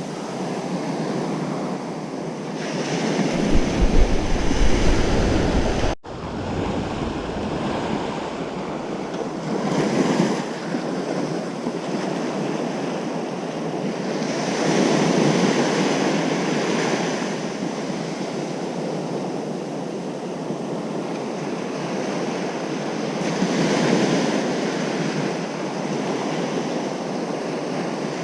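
Ocean surf breaking on a beach: a steady wash of waves, with breakers swelling louder every several seconds. Wind buffets the microphone with a low rumble a few seconds in, which ends at a brief sudden break in the sound.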